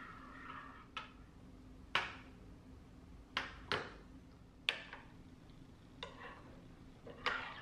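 A spoon stirring a thick pumpkin pie filling in a ceramic bowl, with a soft scrape and about seven sharp clinks as it knocks the side of the bowl, roughly one a second.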